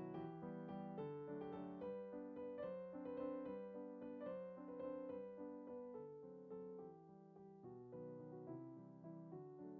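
Background music: a soft piano melody, notes struck about every half second.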